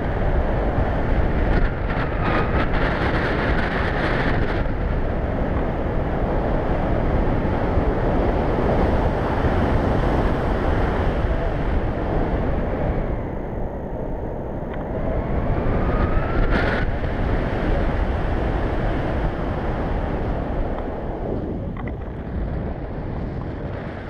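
Wind buffeting a GoPro's microphone during a tandem paraglider flight: a loud, steady rush of air. Twice a faint whistle rises in pitch within the rush.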